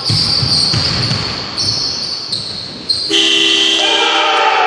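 Basketball bouncing on a hardwood gym floor with sneakers squeaking, then about three seconds in a long horn blast sounds, most likely the scoreboard horn ending the game.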